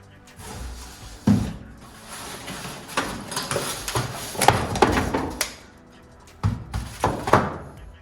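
Packaging and parts being handled, with rustling and several sharp knocks, in two bursts with a short pause about six seconds in.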